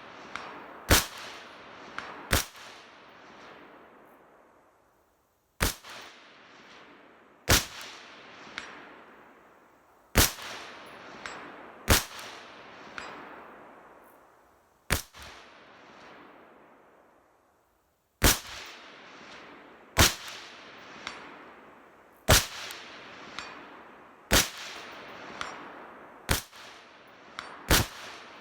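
Mk12 Mod1 clone rifle in 5.56 NATO fired in slow succession, about thirteen shots one to three seconds apart, each report followed by a long rolling echo. Fainter knocks come about a second after several of the shots.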